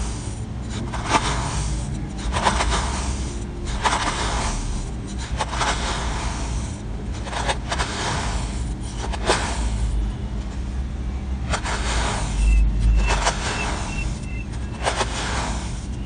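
Knife cutting repeatedly through a block of kinetic sand, a soft gritty crunch with each slice, roughly a dozen cuts about a second or so apart.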